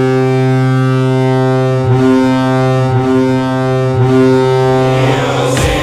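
Ice hockey goal horn blasting: one long, loud, deep steady tone with slight wavers in pitch about every second. About five seconds in it gives way to the goal song starting up.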